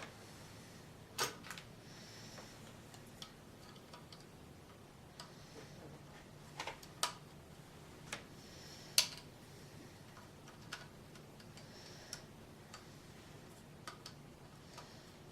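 Plastic LEGO pieces clicking and tapping as they are handled and pressed together: irregular sharp clicks a second or two apart, the loudest about nine seconds in, with a few brief soft rustles between.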